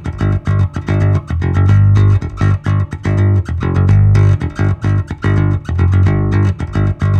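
Background music: a plucked bass and guitar line with a steady beat.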